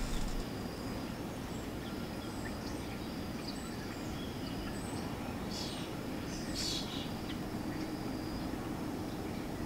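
Steady low ambient rumble of a quiet room at night, with a faint high steady tone and two brief soft hisses a little past halfway.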